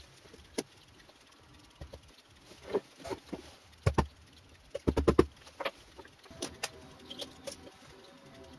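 Irregular clicks and knocks of parts and tools being handled, with a cluster of sharper knocks around the middle.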